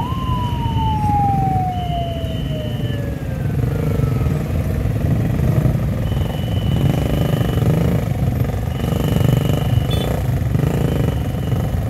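Many motorcycle engines idling and revving together in a queue of traffic. A high steady tone sounds on and off in pulses of about a second. Right at the start a whine jumps up in pitch, then falls slowly over about three seconds.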